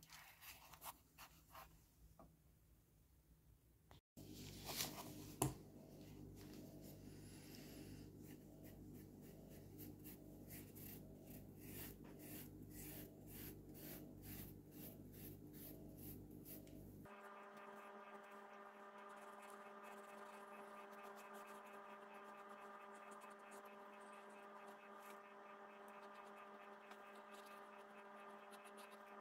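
Near silence: a faint steady electrical hum, with faint scratchy rubbing in the first half as a wool dauber works dye into leather.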